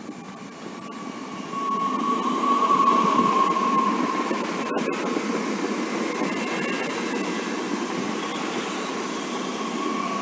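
SNCF TER regional train passing close by along a station platform: a steady rush of rolling noise that grows louder about a second and a half in, with a steady high whine over it.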